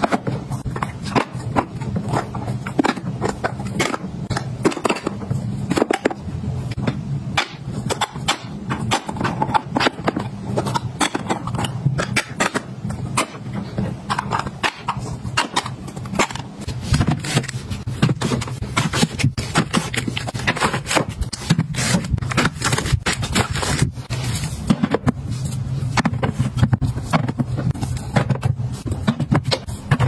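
Metal pet-food tins being set down, stacked and slid into rows on a shelf: many small irregular clinks, knocks and scrapes over a steady low hum.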